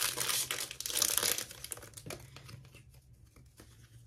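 Foil wrapper of a Shining Fates Pokémon booster pack crinkling and tearing as it is opened by hand. The rustling is dense for the first second and a half, then dies down to a few faint crackles.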